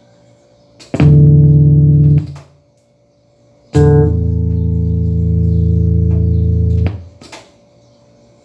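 Electric guitar played through a Line 6 Flextone III amp, newly fitted with replacement pots and switches: a chord struck about a second in and muted after about a second, then a second chord struck and left ringing about three seconds before being muted. Faint steady amp hum and hiss sit underneath between the chords.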